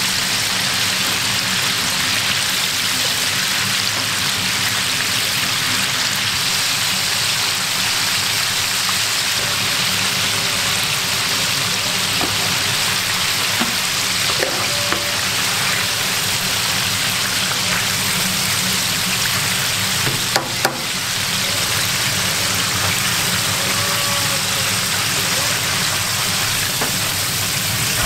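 Battered chicken pieces deep-frying in a large stainless-steel fryer of hot oil: a steady, loud sizzle and bubbling like heavy rain. Two sharp knocks come about twenty seconds in.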